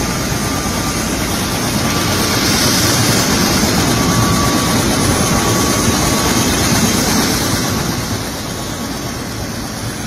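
Helicopter's turbine engine running on the ground: a steady loud rushing noise with a faint high whine, easing slightly about eight seconds in.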